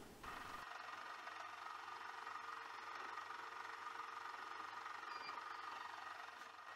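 Faint, steady machine hum with a few steady tones, from workshop machinery running.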